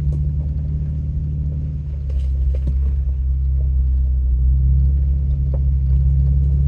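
Off-road vehicle's engine running low and steady, heard from inside the cab, with a few light knocks.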